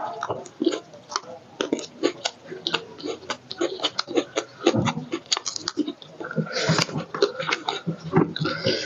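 Close-up chewing and lip-smacking of two people eating roast chicken by hand: a quick, uneven run of wet smacks and clicks, with a short hissy slurp or breath about two-thirds of the way in.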